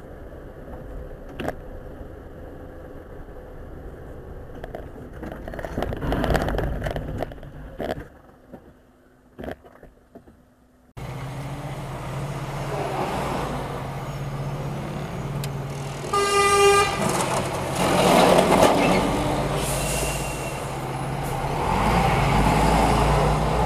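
Dashcam sound from inside a moving vehicle: tyre and road noise on a wet road with a few sharp knocks. After a cut, a steady engine hum runs, and about two-thirds of the way in a vehicle horn sounds once for about a second, followed by louder traffic noise.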